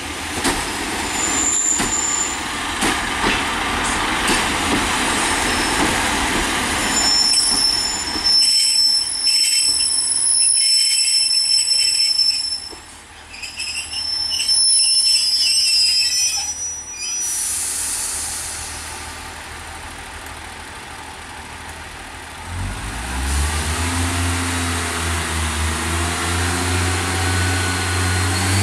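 Two-car diesel multiple unit running into the station with a steady rumble, then a high squeal of brakes for several seconds as it stops. After a quieter pause, its diesel engine throttles up with a rising note a few seconds before the end as the unit pulls away.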